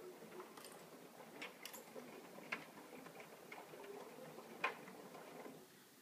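AEG Lavamat L88489FL front-loading washing machine tumbling its load: a faint, uneven churning with irregular light clicks and taps as the drum turns. It goes quieter shortly before the end.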